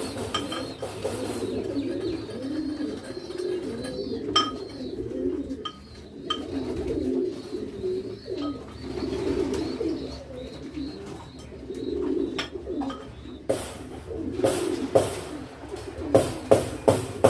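Domestic pigeons cooing continuously, a low warbling coo rising and falling, with a few sharp clicks and a run of sharp knocks near the end.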